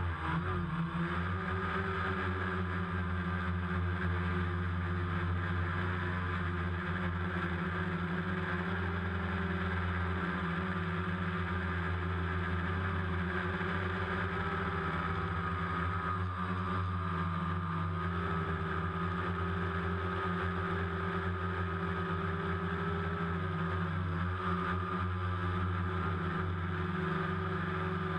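DJI Phantom quadcopter's four electric motors and propellers whirring steadily in flight, settling a little in pitch at the very start and wavering slightly as the throttle shifts.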